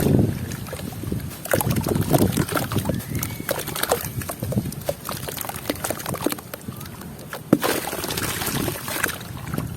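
Sand and charcoal blocks crumbling with many scattered small crackles and one sharper snap a little past the middle, with water sloshing as pieces are dipped. Gusts of wind rumble on the microphone at the start and again near the end.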